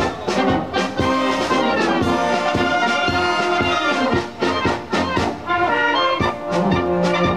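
Czech amateur brass band (dechovka) of brass and reed instruments playing a lively tune live, with a steady beat.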